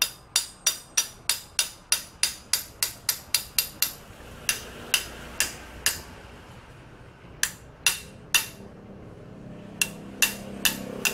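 Sharp metal-on-metal strikes ringing off a motorcycle's front brake caliper as a seized slide pin is knocked loose. The pin is stiff, dry of grease and slightly rusted from rain water. A fast run of about four strikes a second gives way after about four seconds to slower groups of three or four.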